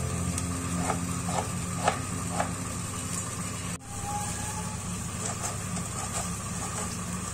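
A steady low hum with a few light clicks in the first few seconds, broken by a brief sudden dropout about four seconds in.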